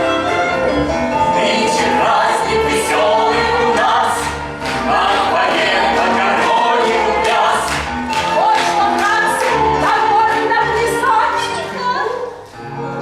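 Stage musical's finale song: a group of voices singing together over an instrumental accompaniment with a regular beat.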